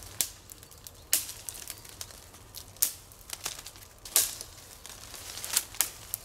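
Thin dry conifer twigs snapping as they are broken off a tree by hand for kindling: a string of sharp cracks, roughly one a second, with smaller crackling between them.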